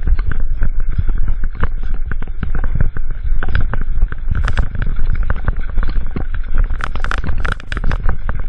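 Mountain bike clattering and rattling down a rough, rocky dirt trail: a dense, irregular run of knocks and clicks from the bike jolting over stones and ruts, over a steady low rumble of tyres on dirt.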